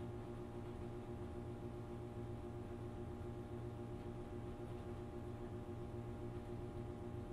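GE GTW500ASNWS top-load washer running, a steady hum with several steady tones from its motor that does not change.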